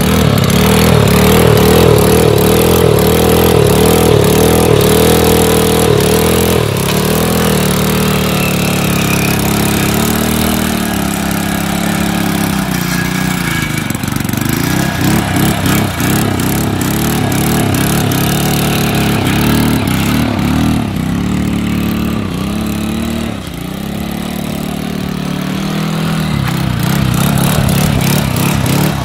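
Small single-cylinder commuter motorcycle engine running with water in its crankcase in place of engine oil. It holds a steady fast idle for the first six seconds or so, then its pitch rises and falls over and over as it is revved.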